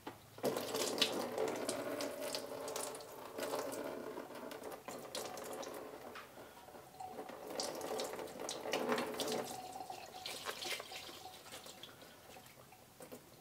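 Engine coolant gushing out of a hose pulled off the water pump and splashing into a drain pan. It starts suddenly about half a second in and runs on unevenly.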